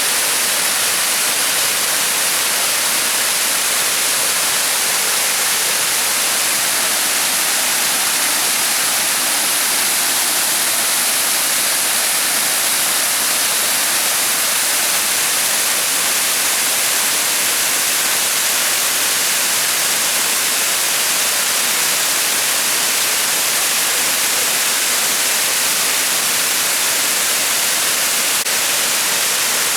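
Waterfall: water pouring and rushing in a steady, unbroken hiss, heaviest in the high end.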